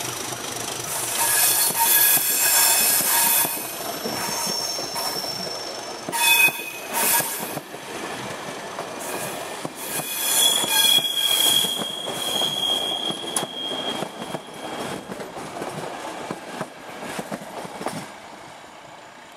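Passenger coaches of an express train rolling close past on their wheels, with high steady wheel squeal and sharp knocks over the rail. The sound falls away near the end as the last coach passes.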